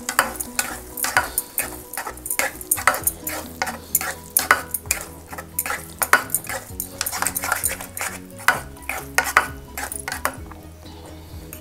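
Teal plastic spatula stirring thick, simmering spinach purée in a nonstick pan: quick, irregular scraping strokes against the pan.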